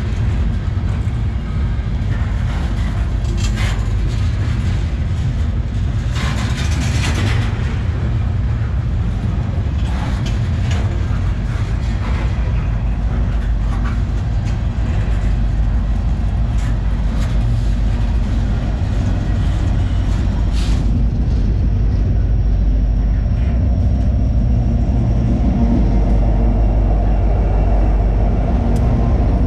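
Freight train cars rolling past close by: a steady low rumble of the wheels with scattered clacks and squeals from wheels and couplings. About two-thirds of the way through the sharp clatter dies away, leaving a smoother rumble with a faint high whine.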